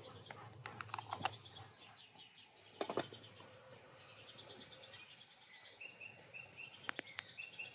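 Birds chirping in short repeated phrases, with light clinks as a lid goes onto a glass teapot and a sharper clink about three seconds in as the teapot is set on top of a samovar. Two more small clicks come near the end.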